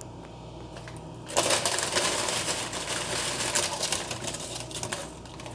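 Tortilla chips being tipped onto a plate: a dense crackling, clattering rattle that starts suddenly about a second and a half in and runs for a few seconds before tailing off.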